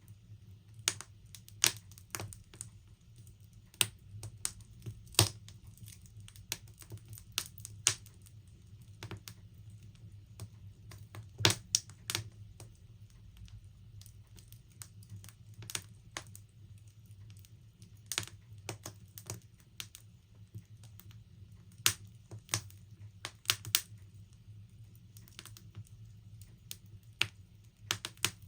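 Wood fire in a log burner crackling: irregular sharp pops and snaps of burning logs, with a louder cluster of pops about a third of the way in, over a steady low rumble.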